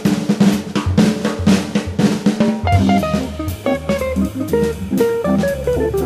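Jazz organ trio trading fours: the drum kit plays busily over a steady organ bass line, and about halfway through a jazz guitar comes in with a single-note phrase that steps downward near the end.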